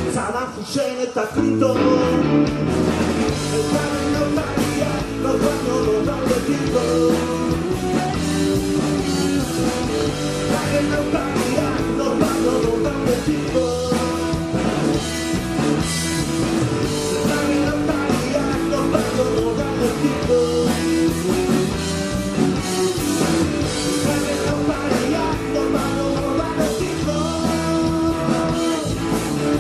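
Guitar-driven pop-rock band music with bass and drums, playing steadily.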